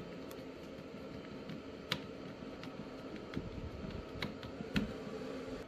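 Small screwdriver driving a screw through a servo's mounting ear into a 3D-printed plastic mount: faint scattered clicks and ticks, the sharpest about two seconds in, over a low steady hum.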